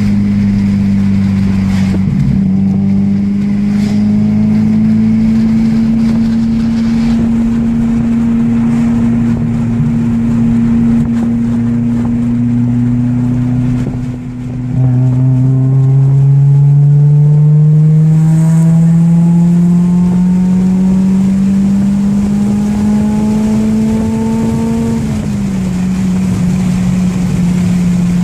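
Toyota 3S-GE four-cylinder engine of an Altezza running on a Speeduino standalone ECU, heard from inside the cabin while driving, its pitch climbing slowly under acceleration. About 14 seconds in the sound briefly dips, then the pitch climbs again for about ten seconds before falling back near the end.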